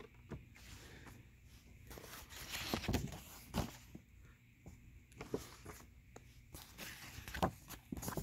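Faint, scattered rustling and soft knocks of something being handled, loudest about three seconds in and again near the end.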